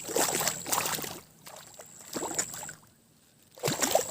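Water splashing in three separate bursts, each about a second long, with quieter gaps between.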